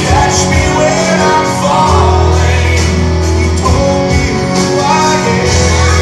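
A recorded pop-rock song with a sung vocal over guitar and a steady bass line.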